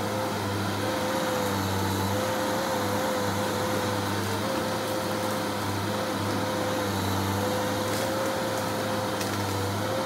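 Bulldozer diesel engine running steadily under work, a deep drone with a whine over it that wavers slightly in pitch.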